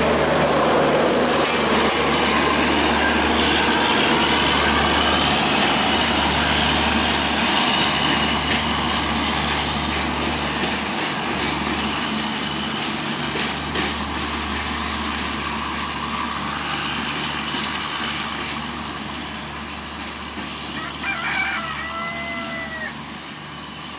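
A Bangladesh Railway Intercity passenger train's coaches rolling over broad-gauge track, wheel and rail noise with scattered clicks from rail joints, slowly fading as the train pulls away. Near the end a rooster crows.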